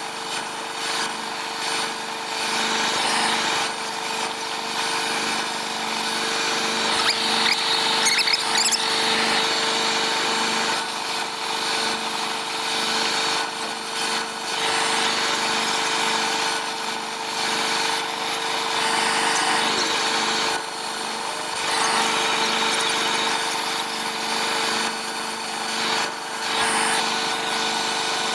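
Steady, harsh noise of metalworking machinery, with a constant hum underneath.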